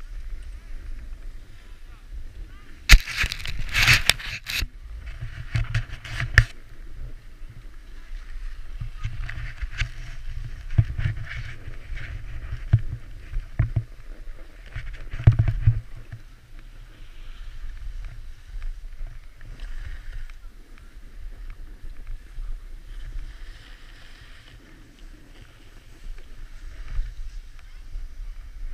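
Sliding down a groomed ski run: edges scraping over packed snow, with wind rumbling on the microphone. A loud harsh scrape comes about three seconds in, and another near six and a half seconds.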